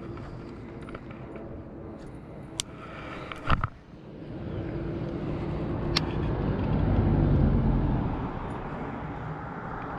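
A cast with a baitcasting fishing rod: a sharp swish about three and a half seconds in. After it a low rumble swells for a few seconds and fades again.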